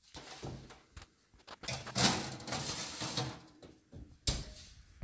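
An electric range's oven being loaded: the door opens and a metal sheet pan with a wire cooling rack slides in with a noisy scrape, loudest about two to three seconds in. The oven door then shuts with a thump a little after four seconds in.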